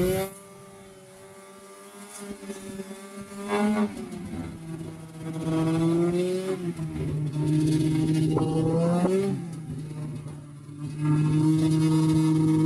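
2005 Arctic Cat Sabercat snowmobile engine running under way, its note rising and falling as the throttle is opened and let off several times, loudest in long surges through the second half.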